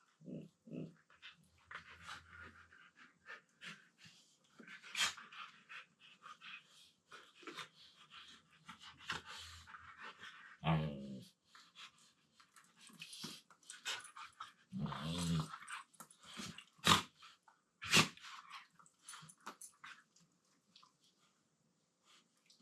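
Two Siberian huskies play-wrestling: a few short, low-pitched play growls and grumbles among constant scuffling of paws, mouths and panting, with a couple of sharp knocks near the end.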